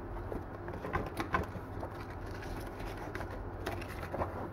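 Soft handling sounds from a gimbal's zippered hard case and its mesh lid pocket as a card is slipped in, with a few faint taps, over a steady low hum; a bird calls in the background.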